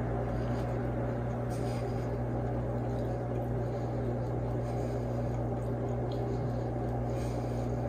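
A steady low hum with a few faint light clicks.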